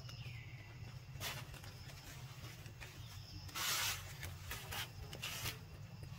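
Quiet outdoor ambience: a steady low rumble with several brief rustling hisses, the longest about three and a half seconds in, and a faint falling whistle at the very start.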